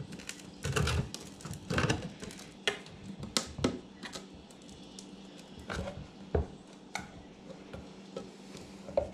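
A screwdriver prying at the lid of a metal gallon paint can: irregular metallic clicks, taps and short scrapes as the tool works around the rim and the lid is worked loose and lifted.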